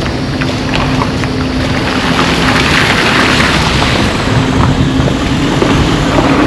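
A steady, loud rush of heavy rain with wind buffeting the microphone, and a low, steady engine hum underneath. The rushing swells a little around the middle.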